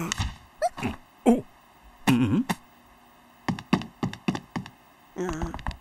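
Cartoon sound effects: a few short wordless vocal glides, then a quick run of clicking footsteps as a character walks off, and a short thump near the end.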